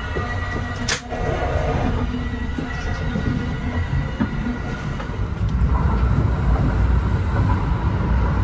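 Kintetsu Hinotori limited express train running on the line: a steady rumble of wheels on rail, with one sharp click about a second in and a slight swell in level after the middle.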